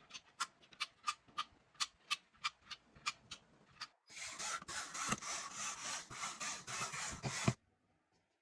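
About a dozen short scraping strokes, three or four a second. Then about three and a half seconds of continuous rubbing that stops suddenly.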